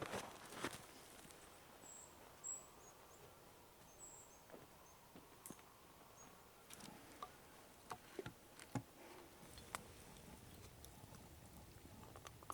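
Near-silent outdoor quiet with scattered faint clicks and taps, and a few very high, brief chirps about two to four seconds in.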